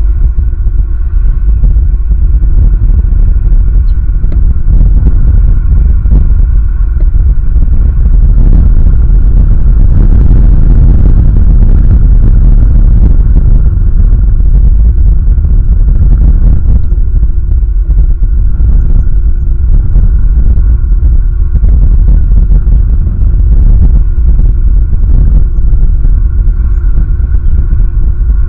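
Strong wind buffeting an outdoor nest-camera microphone: a loud, continuous low rumble that gusts harder around ten seconds in, with a faint steady hum beneath it.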